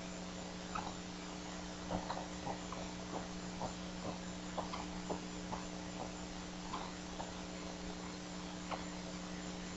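Bald eagle chicks giving short, thin chirps at feeding time, irregularly about once or twice a second, over a steady electrical hum.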